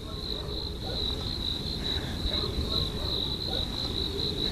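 Crickets chirping in a steady, finely pulsing high trill, over a low rumble.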